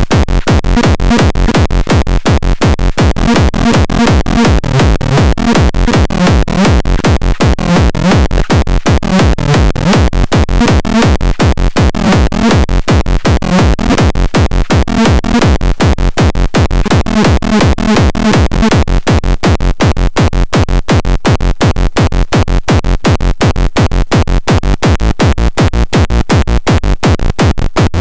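Minimal techno track playing: a steady, evenly repeating electronic beat over a pulsing bass line.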